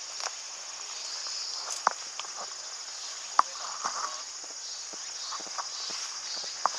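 A steady, high-pitched insect chorus, with scattered sharp clicks and light rustles of footsteps moving through undergrowth, the loudest click about three and a half seconds in.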